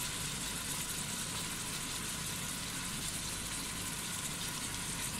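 Chicken pieces sizzling steadily in hot oil in a steel casserole, an even hiss with a low rumble under it.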